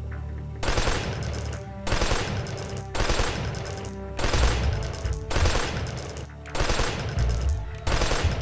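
Added automatic-rifle gunfire sound effect in seven short bursts of rapid fire, about one burst a second, over background music with a low steady drone.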